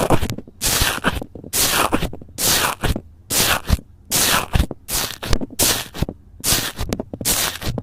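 Slime being worked by hand, pressed or scraped in a steady rhythm: about a dozen short, sharp, noisy strokes, a little more than one a second.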